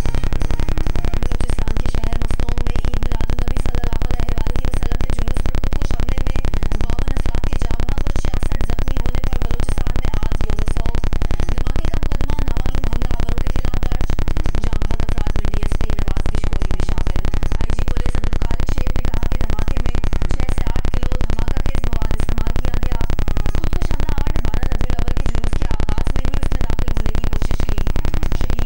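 Loud, steady buzzing static.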